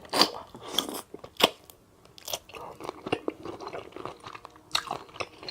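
Close-miked open-mouth chewing with wet lip smacks, irregular and loudest just after the start and about a second and a half in.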